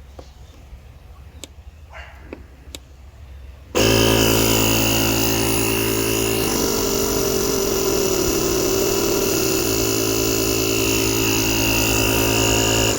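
Air compressor built into a JomGand JQP2250 jump starter, inflating a car tyre: after a few faint clicks it starts abruptly about four seconds in, runs with a loud, steady hum for about nine seconds, and stops right at the end.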